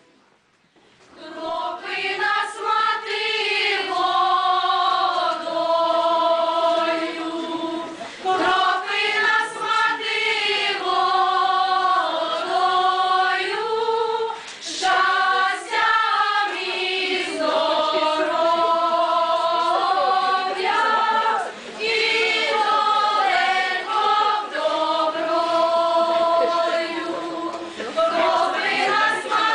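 A choir of mostly young women's voices singing a Ukrainian folk song in long held phrases, with brief breaths between them. The singing begins about a second in.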